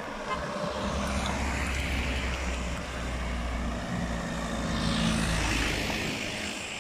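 Road vehicles driving past close by: a van about a second in and a car about five seconds in, each passing as a swell of engine and tyre noise over a low engine hum.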